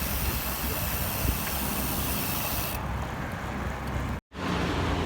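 Steady rushing wind noise on the microphone of a moving bicycle, with a hiss that eases about three seconds in; the sound cuts out for an instant near the end.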